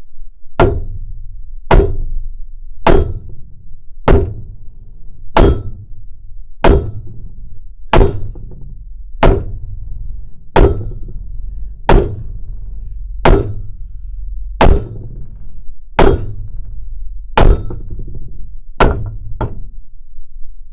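A hammer striking metal at an even pace, about one clanging blow every second and a bit, each ringing briefly, with the last two blows coming closer together. Beneath the blows runs the steady low roar of an oxy-acetylene torch.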